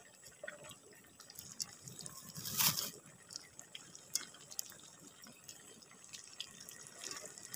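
Skewered cilok balls frying in hot oil in a wok: a steady light sizzle with many small crackles and pops, and a brief louder hiss about two and a half seconds in.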